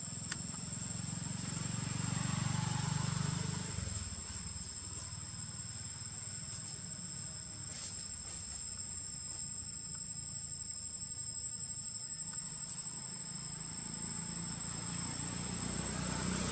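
Insects droning in chorus, two steady high-pitched tones, over a low rumble that swells for a couple of seconds about two seconds in.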